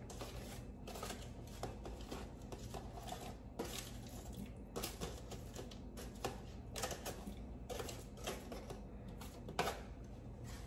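Aluminium foil on a baking pan crinkling and scraping as roasted potato pieces are pushed off it into a pot of broth, in a string of faint, irregular clicks and rustles over a steady low hum.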